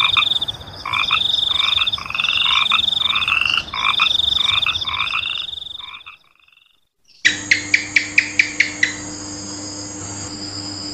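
A chorus of frogs calling in repeated pulsed croaks, fading out about six seconds in. After a second of silence comes a quick run of about ten clicks over a steady faint tone.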